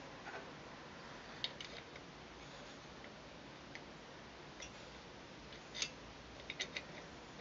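Light metal clicks and ticks as the valve key is worked on the control valve of an Optimus Svea 123 white gas stove, scattered singly with the loudest about six seconds in and a quick run of three just after, over a faint steady hiss.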